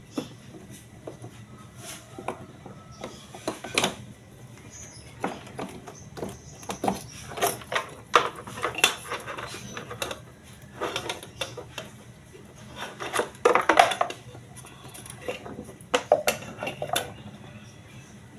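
Irregular metallic clinks, taps and knocks as a washing machine's spin motor and brake parts are handled and test-fitted, with the loudest clusters about halfway through and again about three-quarters through.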